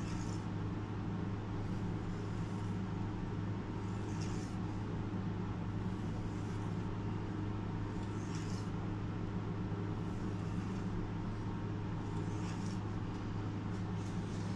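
Steady low hum of workshop machinery running, with a short hiss that recurs about every four seconds.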